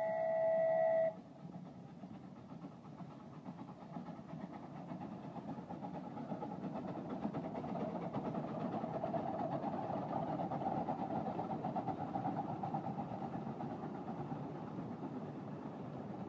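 A miniature steam train running past on 10¼-inch gauge track, its rumble building to its loudest around the middle as the locomotive draws level and then easing off. A held, whistle-like tone cuts off abruptly about a second in.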